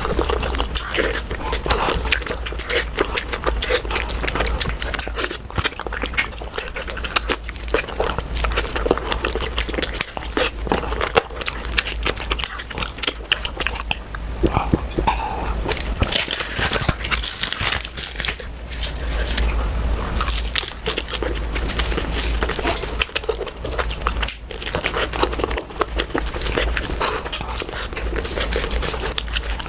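Close-miked eating sounds: continuous chewing and biting, with crunches and crackles, of puri and mutton curry.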